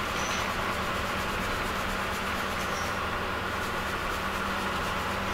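Crushed graphite flakes and grit shaken back and forth in a hand-held testing sieve, a steady rustling over a constant low hum.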